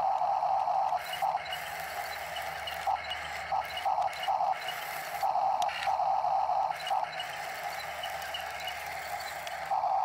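Huina radio-controlled toy excavator's electric track motors and gearboxes whining in short on-off spurts as it is driven.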